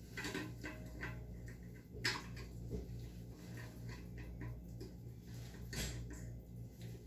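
Scattered small clicks and knocks of a hand tool working on toilet mounting hardware, with a sharper click about two seconds in and another near six seconds, over a steady low hum.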